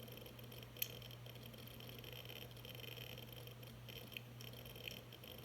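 Hard drive damaged by a fall, clicking faintly over a steady low hum: one sharp click about a second in and two smaller ones near the end.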